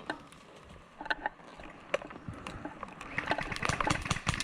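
Airsoft guns firing: scattered sharp clicks that come faster in the last second or so, ahead of a player being hit.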